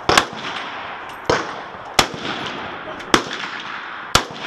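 Gunshots on a shooting range: five sharp cracks, each with a short echoing tail, fired at uneven intervals of about a second.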